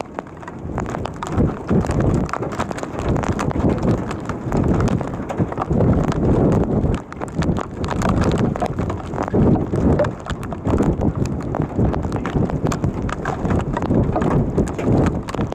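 Gusty storm wind buffeting the microphone: a low, rushing noise that swells and drops every second or so, with scattered faint ticks.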